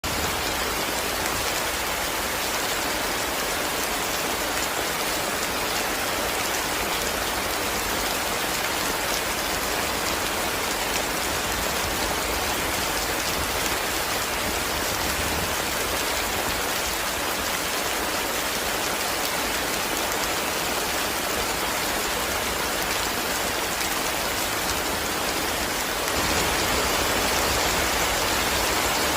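Heavy rain drumming steadily on a tin roof, growing a little louder near the end.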